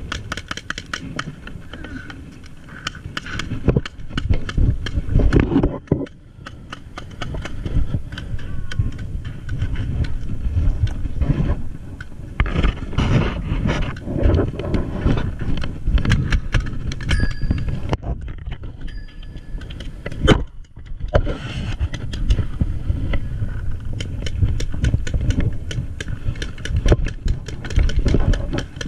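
Handling noise from a body-worn camera: clothing and gear rub and knock against the microphone as the wearer moves low over grass. Dense clicks run over a low rumble, with brief lulls.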